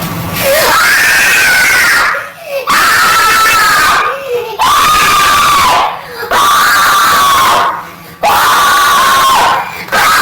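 A loud scream sound effect played over and over, about six screams one after another, each about a second and a half long with short breaks between.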